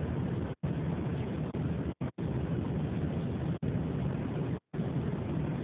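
Continuous loud rumbling noise, strongest in the low range, broken by three brief sudden dropouts to silence: about half a second in, around two seconds, and near the end.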